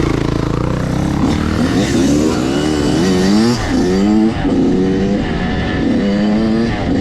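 Dirt bike engine revving as it rides a trail, the pitch rising and falling again and again with the throttle.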